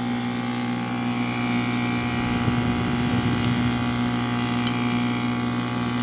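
Medium-frequency induction furnace running, with its cooling fans and water pump: a steady electrical hum with a faint whine over it. A light click about two-thirds of the way through.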